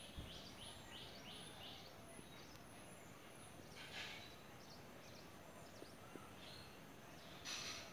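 Birds calling faintly in the background: a quick run of about six short, high repeated notes in the first two seconds, then scattered high calls over a faint hiss.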